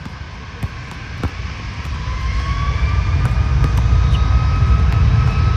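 Aircraft engines growing steadily louder, a deep rumble building from about two seconds in under a faint whine that rises slightly in pitch.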